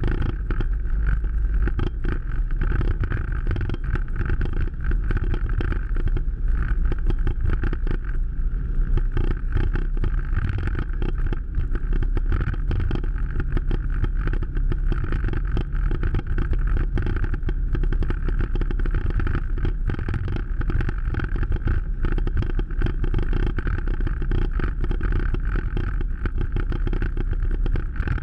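All-terrain vehicle engine running steadily as it is driven through a water-filled trail, with many short knocks and splashes from the rough, wet ground.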